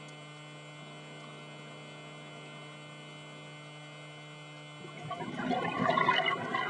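Steady underwater hum with a few thin fixed tones, then about five seconds in a rush of bubbling from a scuba diver's regulator exhaust, loudest near the end.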